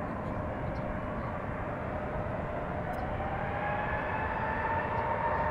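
Jet airliner engines running with a steady rumble and a thin whine. A higher whine rises slowly in pitch and grows louder through the second half.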